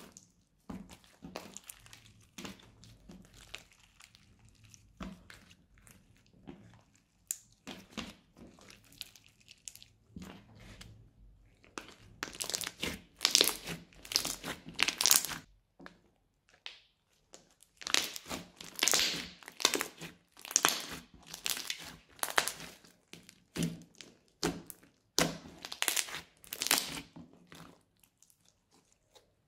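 Hands kneading, squeezing and stretching a thick crunchy slime, giving irregular bursts of crackling, crinkling pops. The pops come in louder flurries about twelve seconds in, again around eighteen to twenty-one seconds, and near the end.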